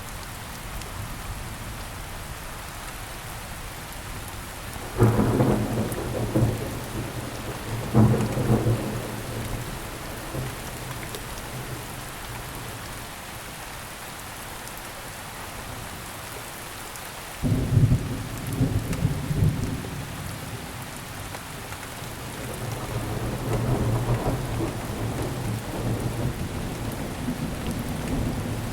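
Steady rain falling, with thunder: sudden claps about five, eight and seventeen seconds in, each rumbling away over a second or two, and a longer, slower rumble building near the end.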